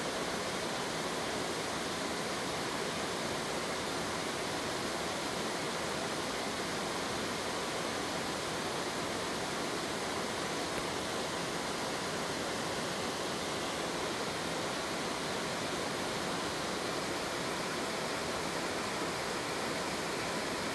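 Waterfall cascading down a broad sloping rock face: a steady rush of water.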